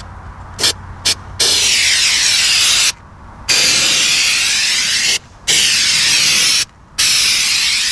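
Aerosol can of spray-on bedliner spraying a coat onto a truck door sill. Two short puffs about a second in, then four long sprays of hiss, each a second or more, with short pauses between them.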